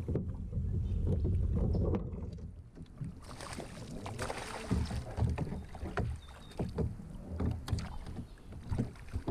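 A hooked fish thrashing and splashing at the surface beside a kayak for a couple of seconds, followed by scattered knocks of the rod and landing net against the plastic hull as it is netted. A low rumble fills the first two seconds.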